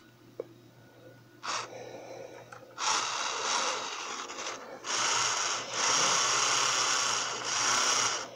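Small electric motor and gears of a Piko HO-scale BR 80 model steam locomotive running on the test track with a whirring buzz. It repeatedly cuts out and picks up again, typical of poor current pickup from a dirty rail.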